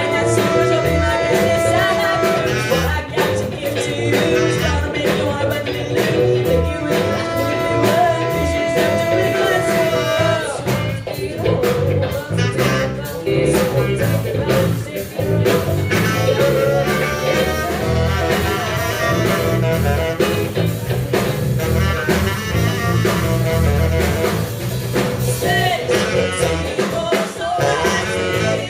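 Yanagisawa tenor saxophone playing with a rock band backing, with guitar and drums. There are two long held notes in the first ten seconds, followed by busier, rhythmic playing.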